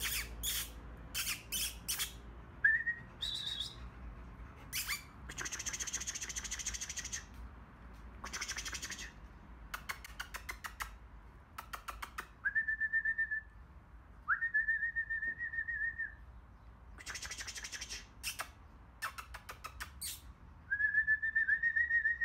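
A person whistling and making mouth noises to call puppies: short whistles held on one pitch, each sliding up at the start, alternating with bursts of sharp clicking and smacking sounds. The longest whistles come about halfway through and near the end.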